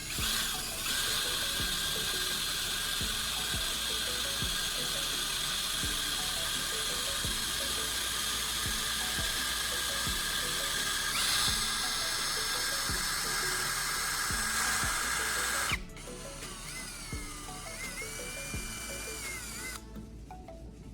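Electric drill spinning a welding rod while pliers scrape the flux coating off it: a steady whine with a scraping hiss. The sound drops and gets quieter about 16 seconds in. Faint background music with a steady beat runs underneath.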